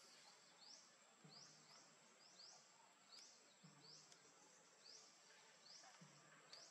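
Faint forest background, close to silence: short, high, rising chirps repeat about once or twice a second over a thin steady high-pitched insect drone.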